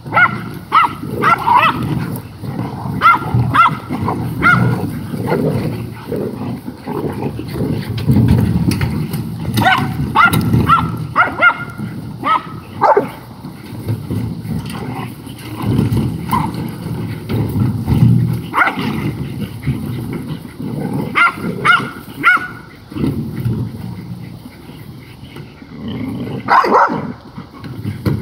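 Several dogs, black mouth cur hog dogs among them, growling continuously as they bite and tug at a wheelbarrow, with clusters of short high yips and whines breaking in from time to time.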